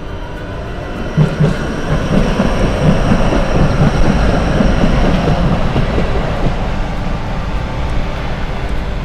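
Low-floor tram passing close by on street track: the rumble of wheels on rails builds from about a second in, is loudest mid-way and slowly fades.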